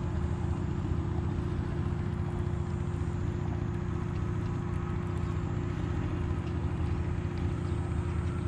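A steady low motor-like drone with a constant hum, unchanging throughout.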